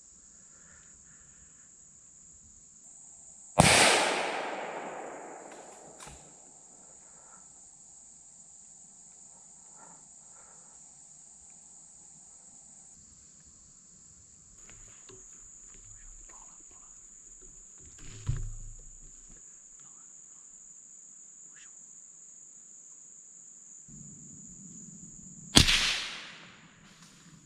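Two gunshots about 22 seconds apart, each a sudden loud report with an echo that dies away over a second or more. A steady high-pitched drone of insects runs underneath, and there is a dull thump about halfway between the shots.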